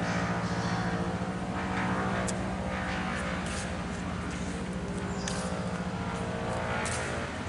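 An engine or motor running steadily at a constant pitch, a continuous mechanical drone, with a few brief high hisses or clicks over it.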